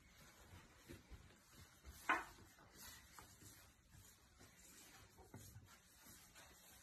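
Cats' paws brushing and scraping against a wall as they stretch up, faint throughout, with one short sharp knock about two seconds in.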